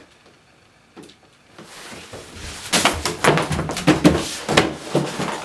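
A second or so of quiet room, then a quick run of knocks, thumps and rustling as a plush toy and small figurines are swept off a tabletop by hand.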